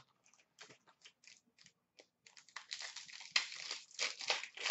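Upper Deck Black Diamond hockey card box and pack packaging being opened by hand: a few short rustles, then from about two seconds in a denser run of crinkling and tearing.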